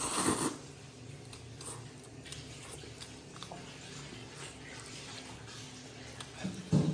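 A man slurping noodles from a bowl: a loud slurp right at the start and another near the end, with quieter chewing and small mouth sounds in between.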